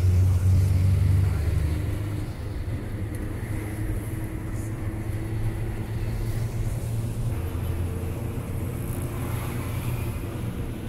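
Bus engine running, heard from inside the passenger cabin: a steady low drone, louder for the first couple of seconds, then easing to an even level.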